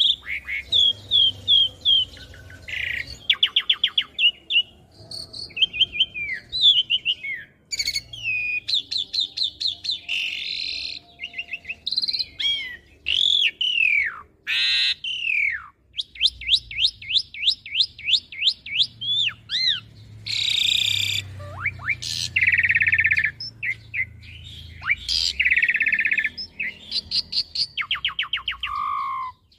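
Asian pied starling singing a long, varied song. It mixes quick runs of repeated notes, falling and rising whistles, and scratchy, buzzy phrases, with short pauses between phrases.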